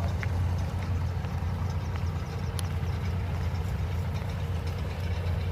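Heavy diesel engine running steadily at low speed, a deep even hum with no change in pace.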